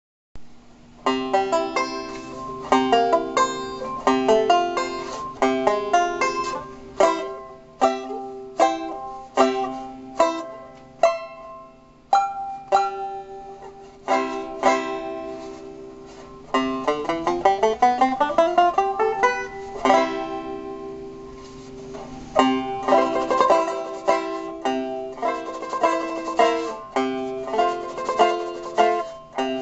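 A 1920s Vega Artist tenor banjo with a Remo Renaissance head, played solo: rhythmic strummed chords with a bright ringing tone. About halfway a run of chords climbs steadily in pitch, and a few chords are left to ring out and fade.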